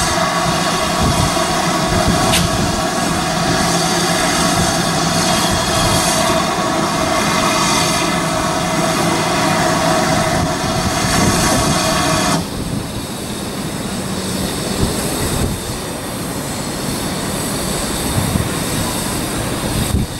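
Steam locomotive hissing steam loudly and steadily, a high hiss with a faint ringing tone in it, which cuts off suddenly about twelve seconds in. A quieter, low rumble follows as the engine moves slowly along the track.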